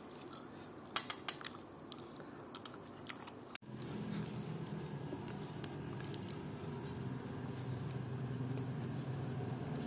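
A spoon taps a soup bowl a few times, in quick clicks about a second in. After an abrupt cut a little past three seconds, a steady low background hum runs on.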